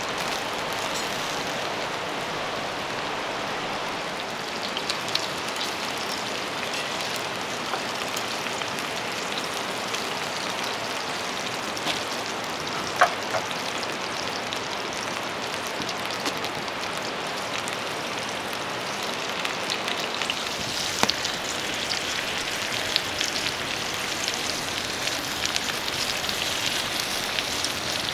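Steady rain falling, with scattered drops tapping, a sharp tap about 13 seconds in, and the tapping growing a little denser near the end.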